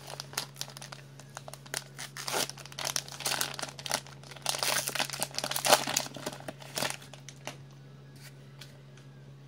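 Wrapper of a trading-card pack being torn open and crinkled in the hands, a dense crackling that dies away about two seconds before the end. A steady low hum runs underneath.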